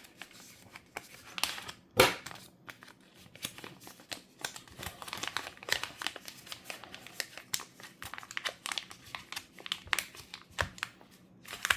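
Packaging crinkling and rustling as a watch band is worked out of it by hand, with many small clicks and one sharper knock about two seconds in.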